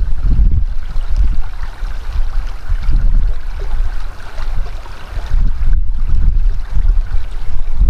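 Wind buffeting the microphone: a loud, gusty low rumble that rises and falls irregularly, with a faint hiss above it.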